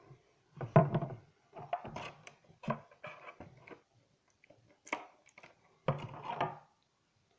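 Clear plastic blister packaging and a plastic action figure being handled, giving irregular crackles, clicks and light knocks in uneven clusters.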